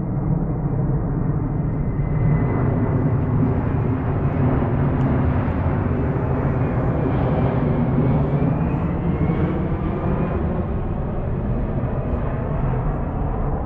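Large airplane flying over, a loud, steady low rumble with a faint whine that drifts in pitch.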